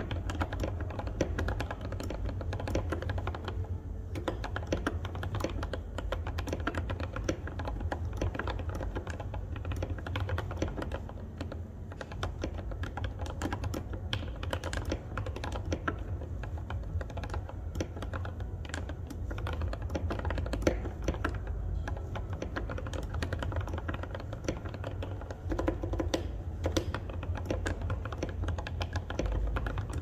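Continuous fast typing on an NJ68 mechanical keyboard with Gateron Yellow Milky linear switches on 67 g springs and OSA-profile keycaps: a dense, unbroken stream of keystroke clacks.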